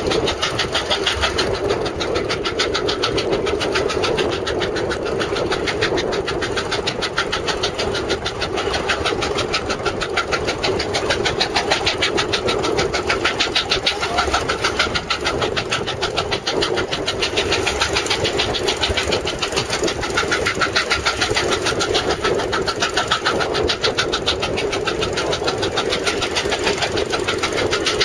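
Steam traction engine's exhaust chuffing in a rapid, even beat, working under load pulling a plow.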